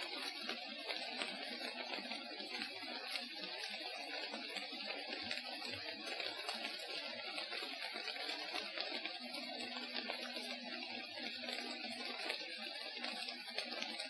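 Light rain pattering on forest foliage: a dense, steady crackle of drops, with a few soft low thumps. A faint steady hum comes in about nine seconds in and stops just before the end.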